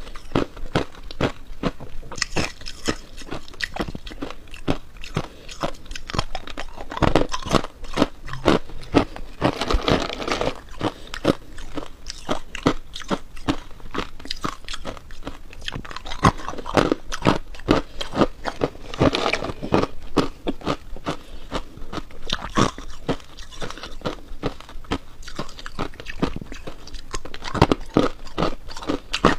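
Hard ice being bitten and chewed: a dense, continuous run of sharp crunches, several a second.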